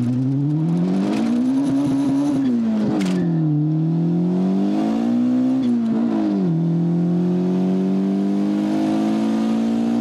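Honda Civic's four-cylinder engine heard from inside the cabin during a hard acceleration run through the gears. The engine note climbs, drops at gear changes about two and a half and six and a half seconds in, then climbs slowly again in the higher gear.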